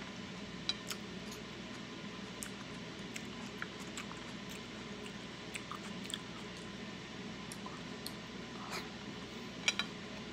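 Close-up mouth sounds of chewing cooked octopus: soft wet smacks and squishes with small scattered clicks, over a steady hiss. A couple of sharper clicks near the end as the chopsticks are picked up off the plate.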